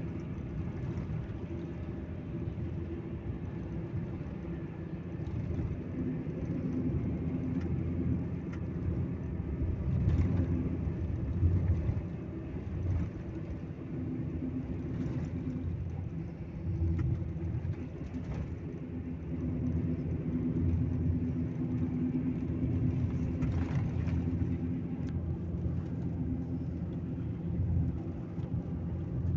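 Intercity coach under way, heard from inside the passenger cabin: a steady low drone of engine and road rumble, swelling louder a few times.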